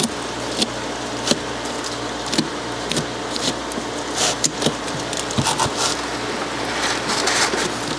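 Styrofoam cooler wall being pushed and torn through by hand, giving scattered short squeaks, scrapes and crunches of the foam, over a steady low hum.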